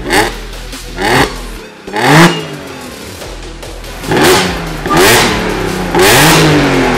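Audi B8 S4's supercharged 3.0-litre V6 revved at standstill, heard through the exhaust. There are three quick throttle blips with the revs falling away after each on the stock exhaust. Then, with the aftermarket exhaust pipes fitted, come more blips and a longer held rev near the end.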